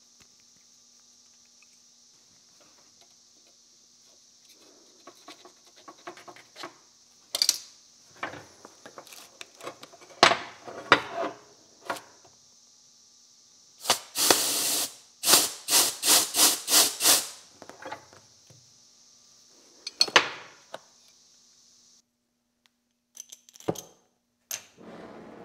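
Brass oxy-acetylene torch parts being handled and screwed together on a steel workbench: scattered clicks and scrapes, and about six loud rasping strokes in quick succession around the middle. A steady high drone of periodical cicadas runs behind and stops suddenly about 22 seconds in. A few sharp clicks come near the end, and the hiss of the lit torch flame begins.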